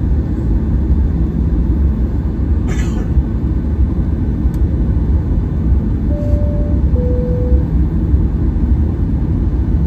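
Steady low rumble inside the cabin of a Boeing 737-800 taxiing on its CFM56 engines, with tyre and airframe noise. About six seconds in, a two-tone cabin chime sounds, a high note followed by a slightly lower one.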